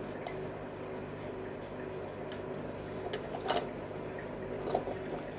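A few faint, short clicks and taps of 3D-printed PLA model parts being handled and pressed back together, the sharpest about three and a half seconds in, over a steady low hum.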